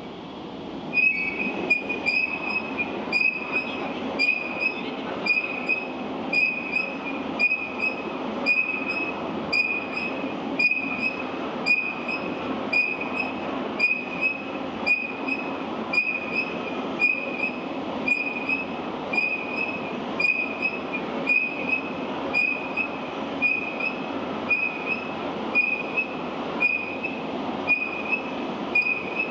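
Towing carriage of a ship-model test tank running along its rails: a steady rumble that starts about a second in, with a short high tick repeating about one and a half times a second.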